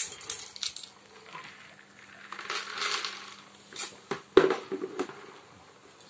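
Small hard pieces rattling and clattering as they are tipped from one black plastic pot into another, with scattered clicks at first and a sharp plastic knock about four and a half seconds in.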